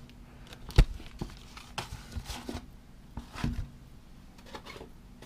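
Unboxing handling sounds: one sharp knock a little under a second in, then scattered soft taps and rustles as the instruction booklet and the box's contents are moved.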